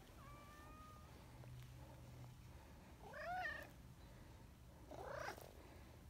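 Brown tabby cat meowing twice at close range: a short arched meow about three seconds in and a second, rising meow near the end.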